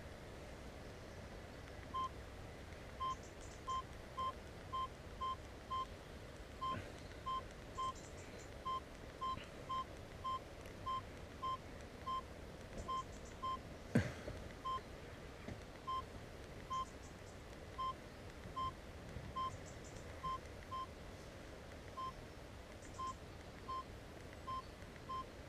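A run of short electronic beeps, all at the same steady pitch, coming irregularly about one or two a second, with a single sharp click about 14 seconds in.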